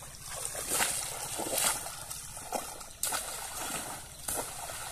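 Pond water splashing and sloshing in irregular surges, with a few sharper splashes about a second apart.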